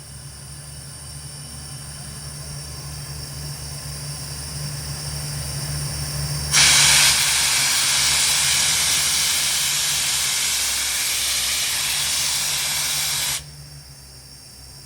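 Borewell drilling rig running with a steady low drone and a rapid low pulsing that grows louder over the first six seconds. About six and a half seconds in, a loud rush of hissing air starts abruptly, then cuts off suddenly about seven seconds later.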